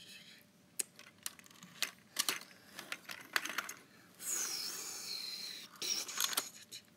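Plastic parts of an Optimus Prime Transformers toy clicking and clacking as they are folded and snapped into place by hand, in a run of sharp separate clicks. About four seconds in comes a hissing stretch of about a second and a half, followed by a few more clicks.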